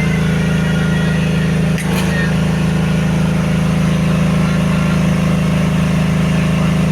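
Compressed-air equipment for a 20 HP air compressor running steadily with a low hum. A brief click about two seconds in.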